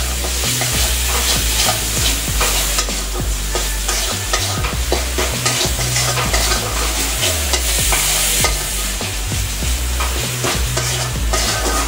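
A metal spatula scrapes and knocks against an aluminium kadai, stirring continuously, while a spiced onion masala sizzles in oil. This is the stage of frying the masala until its raw smell is gone.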